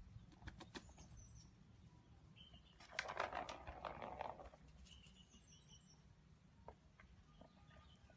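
Quiet outdoor background with small birds chirping faintly now and then. About three seconds in, a cat paws at the scratch pad of a plastic cat toy, making a scratchy rustle that lasts over a second.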